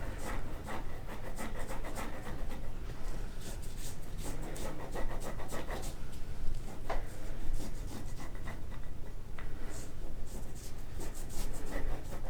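Graston stainless-steel instrument stroked repeatedly over the skin along the outer thigh's IT band: irregular soft rubbing and scraping strokes of instrument-assisted soft-tissue work.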